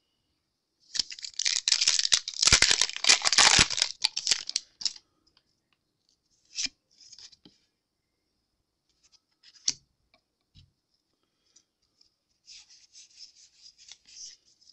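Foil Pokémon booster pack wrapper crinkling loudly as it is opened, for about four seconds. Brief rustles follow as the cards are drawn out, then light papery sliding as the trading cards are shuffled through by hand near the end.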